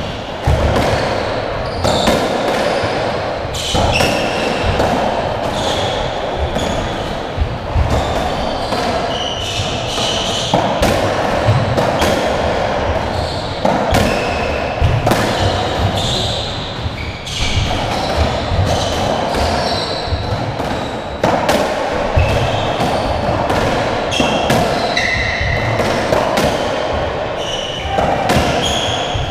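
Racketball rally: the ball is struck by strung rackets and smacks off the court walls over and over at an irregular pace, with short squeaks of shoes on the wooden floor between hits.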